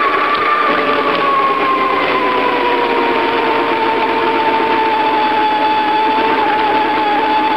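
A steady mechanical whine from the moving bicycle, sinking slowly in pitch, over a hiss of road and wind noise.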